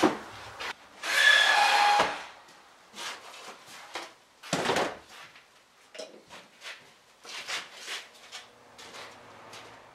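Workshop handling noises: a loud scrape or hiss lasting about a second, starting about a second in, a heavier knock a little before five seconds, and scattered light clicks and knocks.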